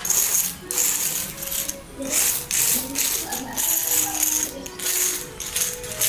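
Background music with a rhythmic hissing rattle, short strokes about every half second to second.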